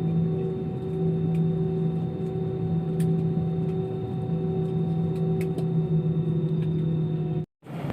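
Steady multi-tone hum of an airliner's engines heard inside the cabin after landing, with a few faint clicks; it cuts off suddenly near the end.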